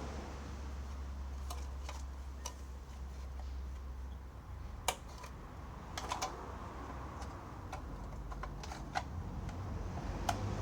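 Scattered sharp clicks and taps of hands handling the chainsaw's parts, irregular and sometimes in quick pairs, over a low steady hum.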